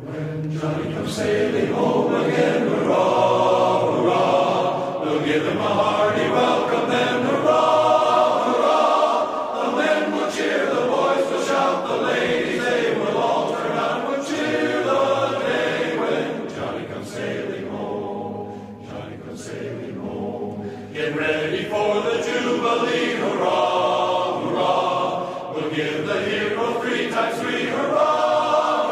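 Choir singing in harmony, coming in at once after a moment of near silence and softening a little past the middle before swelling again.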